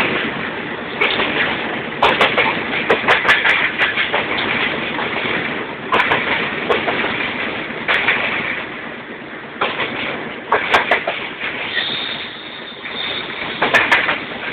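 Train running along the track, its wheels clattering over rail joints in repeated bursts of clicks and knocks over a steady rumble. A thin high whine lasts for about a second shortly before the end.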